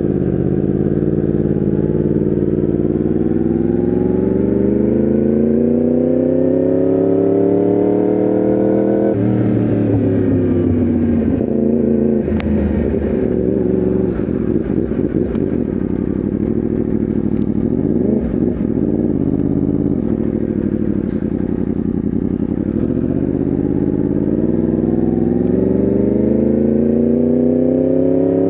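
Yamaha R1M's crossplane inline-four engine under way: its pitch climbs steadily for about nine seconds as the bike accelerates, drops sharply, sinks as the throttle eases with a brief blip partway through, then climbs again near the end.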